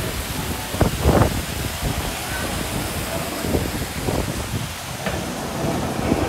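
Wind buffeting the microphone: a steady rushing noise broken by several low gusty thumps.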